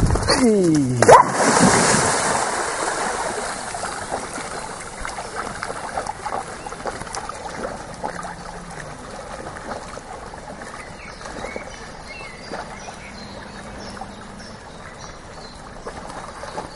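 A German shepherd dog plunges into a lake with a loud splash about a second in, after a brief falling cry, then water sloshing and trickling as it swims away, the splash noise fading over a few seconds.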